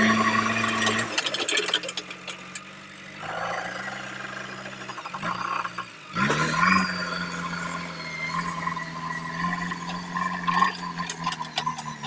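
JCB 3DX backhoe loader's four-cylinder diesel engine running as the front loader bucket works a load of gravel. It revs up about six seconds in and holds a steady higher note, with scattered metallic clanks and rattles.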